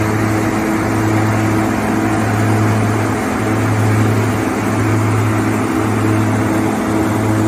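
OXBO self-propelled green bean harvester running steadily: the diesel engine and picking machinery make a constant, even drone with a deep hum underneath.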